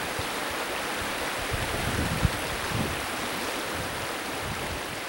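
Steady outdoor rushing noise, with irregular low gusts of wind buffeting the microphone and one short knock about two seconds in.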